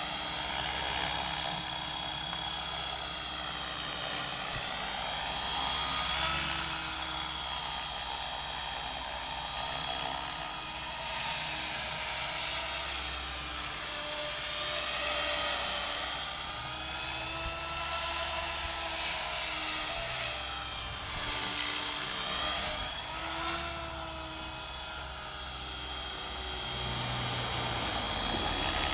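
Align T-Rex 500 electric RC helicopter flying, its Scorpion motor giving a steady high whine over the rotor noise. The pitch dips and rises gently every few seconds as the helicopter manoeuvres.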